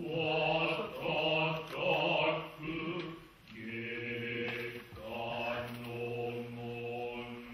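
Kita-school Noh chorus (jiutai) of men chanting utai in unison: slow, drawn-out lines with a wavering, vibrato-like pitch, breaking briefly about three and a half seconds in before continuing.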